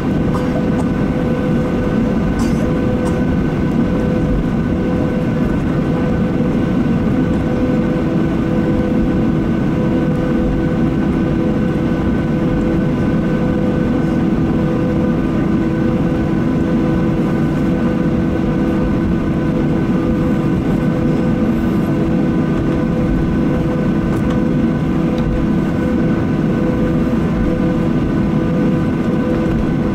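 Cabin noise of a Boeing 737-800 taxiing, heard from inside the cabin: its CFM56-7B jet engines idling with a steady hum of several held tones over a low rumble.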